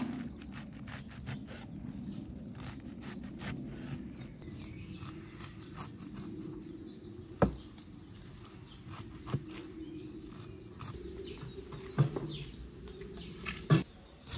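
A cleaver chopping fresh leafy greens on a wooden cutting board: a quick run of dull knocks at first, then slower, single, louder chops.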